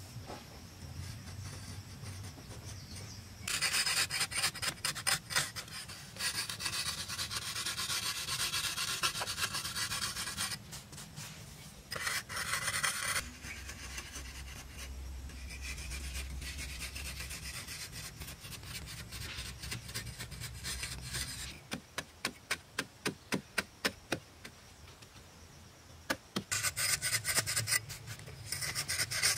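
A small blade scraping and carving the surface of a moulded earthen plaster wall, in runs of rasping strokes. Near the end it makes a quick series of short scrapes, two or three a second.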